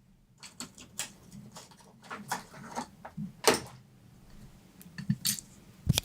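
Irregular soft taps, clicks and rustles of objects being handled, starting about half a second in, with a sharper click about three and a half seconds in.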